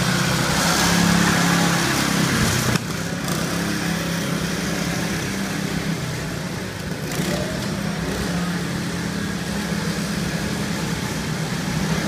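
Go-kart engines running as several karts lap the track, a steady droning hum. It is loudest for the first few seconds as a kart passes close, then drops suddenly and stays level.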